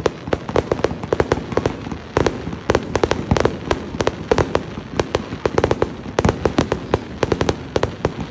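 Fireworks going off in a rapid, irregular string of sharp bangs and pops, several a second.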